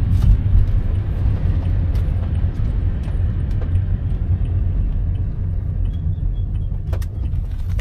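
Steady low rumble of a motor vehicle's engine and road noise during a ride, with a few faint clicks.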